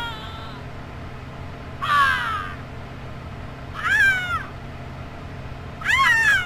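Three short, high-pitched human pain cries played one after another from a close-combat sound-effects library, about two seconds apart. The first slides down in pitch; the others rise and then fall.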